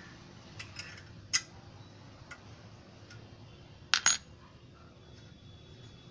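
Sharp metallic clicks from the hand-turned lever of the open/close valve on a motorcycle silencer's end cap: a few light clicks, one louder click about a second and a half in, and the loudest, a quick double click, about four seconds in.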